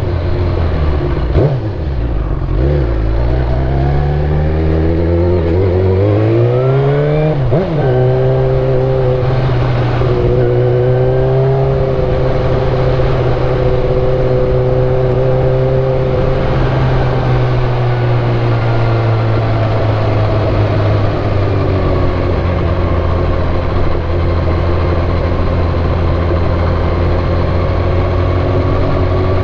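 Suzuki GSX-R1000 K8 inline-four sport-bike engine under way. The revs drop about a second in, then climb for several seconds with a sharp break near seven seconds like a gear change. After that it runs at a steady cruising pitch.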